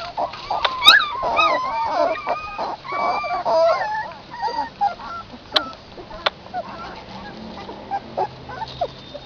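A litter of newborn puppies squealing and whining while nursing: many short, high cries overlapping, thickest in the first half and thinning to scattered squeaks later, with a couple of sharp clicks midway.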